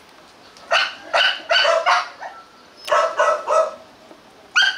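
Hmong bobtail dogs play-barking: about eight short barks in three quick runs, four, then three, then a single bark near the end.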